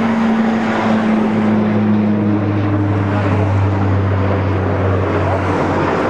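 Boeing 737's CFM56 jet engines running as the airliner rolls along the runway: a steady low drone over a broad rush of noise, its pitch easing down slightly.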